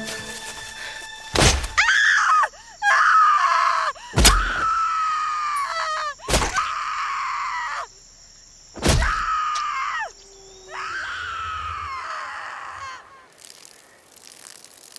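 A person screaming in a series of long, high shrieks, with a sharp hit or thud before several of them.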